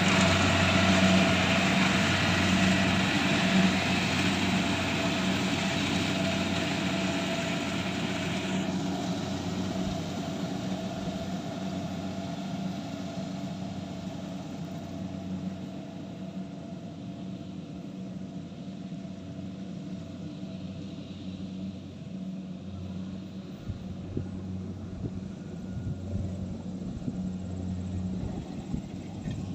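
Rice harvesting machine's engine running steadily with a low hum that grows gradually fainter. The higher hiss drops away about eight seconds in.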